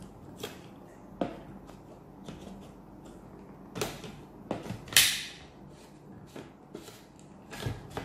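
Hard plastic parts of a Dyson DC58 handheld vacuum and its crevice tool clicking and knocking as they are handled and fitted together: a few scattered clicks, the loudest and sharpest about five seconds in. The vacuum's motor is not running.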